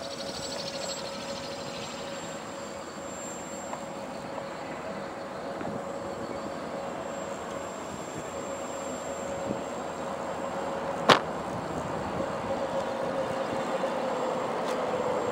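Motor and propeller of a radio-controlled model autogyro in flight: a steady, high, even drone that grows a little louder toward the end as its pitch dips slightly. A single sharp click about eleven seconds in.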